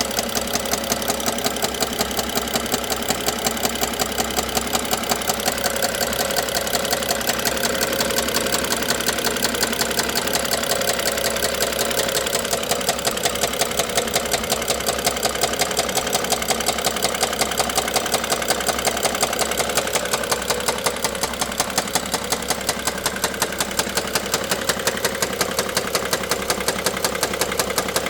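BMW N55 3.0-litre turbocharged straight-six idling with a steady, regular knock that repeats several times a second.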